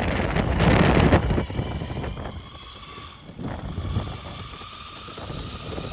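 Wind buffeting the microphone while riding an electric skateboard, loud for the first second or so and then easing off. A faint steady whine from the board's motor sits underneath.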